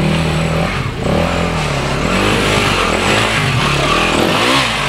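Dirt bike engines revving close by, their pitch rising and falling unevenly as the throttle is worked over rocky ground; more than one bike is heard at once.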